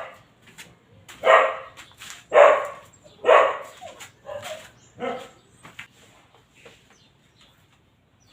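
A dog barking: three loud barks about a second apart, then a couple of fainter ones.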